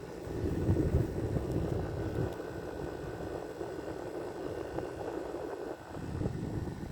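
Panasonic window air conditioner running: a steady rush of fan air over the rotary compressor's low hum, with a faint steady high tone.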